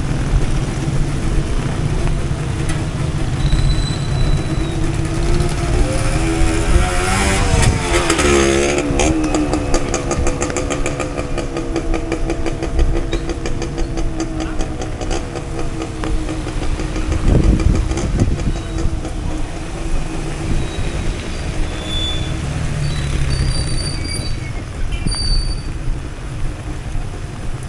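Traffic passing on a rain-soaked street: car and motorcycle engines and tyres hissing through water, over steady rain. One vehicle's engine passes close about seven seconds in, its pitch shifting as it goes by, and another heavy vehicle rumbles past near the middle.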